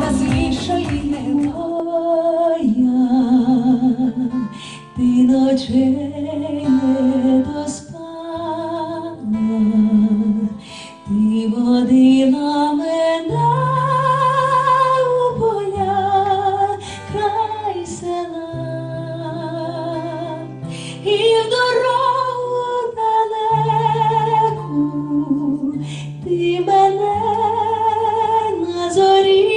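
A woman singing a melodic song with long held, vibrato notes over instrumental accompaniment with sustained bass notes.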